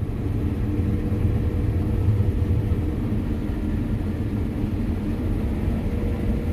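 Combine harvester running under way as it begins harvesting: a steady low engine rumble with a few constant hum tones above it.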